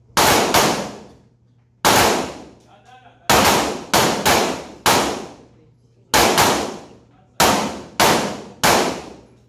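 About a dozen Glock 17 9mm pistol shots from several shooters firing at once on an indoor range, at uneven intervals and sometimes in quick pairs, each sharp report trailing off in a long echo.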